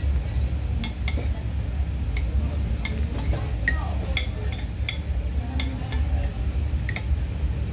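Spoons and forks clinking against dishes as people eat: a dozen or so light, irregular clinks over a steady low rumble.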